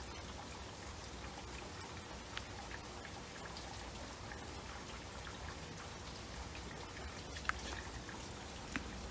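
Air bubbles from a pump rising and breaking in the water column of a homemade bubble tube lamp: a steady bubbling patter over a steady low hum, with a couple of sharper pops near the end.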